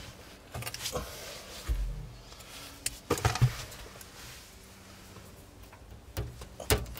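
Scattered small metal clicks and taps as a pin is worked into the release hole of a truck's ignition lock cylinder to free the key tumbler. There is a cluster of clicks about three seconds in and two more near the end.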